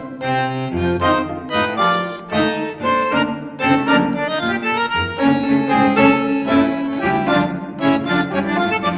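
Instrumental tango music led by a squeezebox, playing short, rhythmic chords and melody notes.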